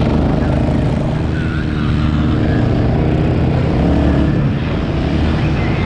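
Quad ATV engine running steadily under throttle while riding through sand, its note swelling slightly about four seconds in.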